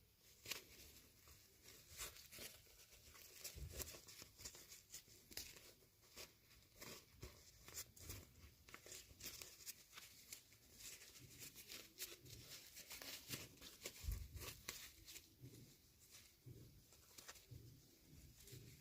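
Faint crinkling and tearing of toy packaging being opened by hand, with many small crackles and a few soft knocks.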